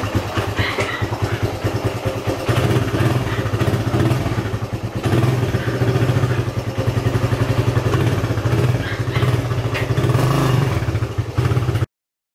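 Suzuki Raider 150's single-cylinder four-stroke engine running, with the throttle opened so that it grows louder about two seconds in and again after a brief dip about five seconds in. The sound cuts off suddenly near the end.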